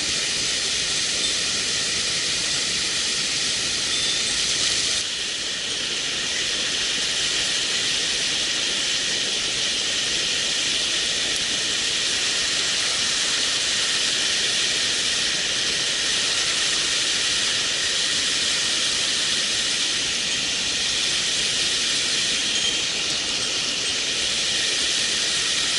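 Mountain stream water rushing steadily, a constant hiss of fast-flowing water, dipping slightly about five seconds in.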